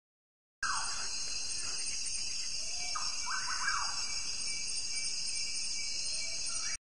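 A steady high-pitched chorus of insects with a few downward-sliding bird calls over it. It starts suddenly just over half a second in and cuts off abruptly just before the end.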